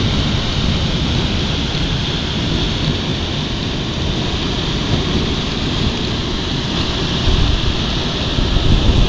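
Heavy hail and rain pelting down in a violent storm: a loud, unbroken rushing, with a strong low rumble underneath that swells a few times near the end.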